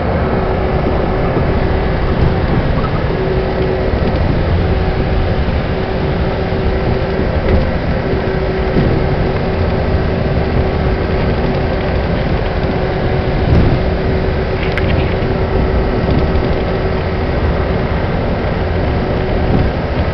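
Steady road noise heard from inside a vehicle moving at highway speed: tyre rumble and wind noise, with a faint steady hum under it. A brief click comes near the end.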